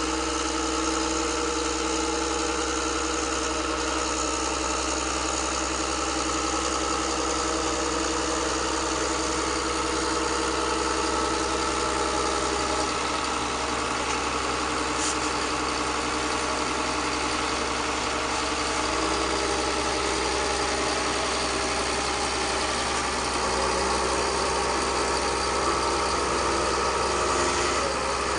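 An engine idling steadily, a constant hum made of several steady tones that hardly changes, with one brief high tick about halfway through.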